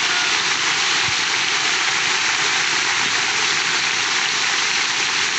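A large crowd applauding, a steady even clapping of many hands.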